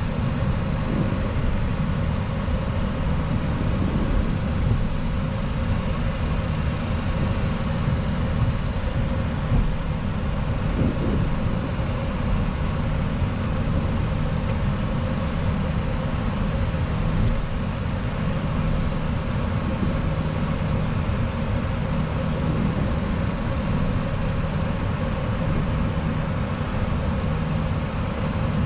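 Steady flight-deck noise of a Boeing 737-800 taxiing at engine idle: the low rumble of its CFM56 engines with a steady hum and hiss running through it.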